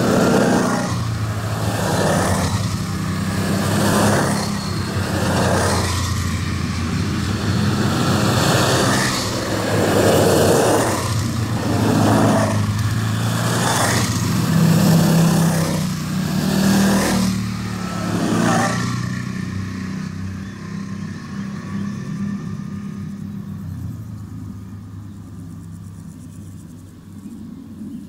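A line of quad bikes (ATVs) driving past one after another, each engine swelling and falling away as it passes, every second or two. After the last one goes by, the engine sound dies away over the last ten seconds.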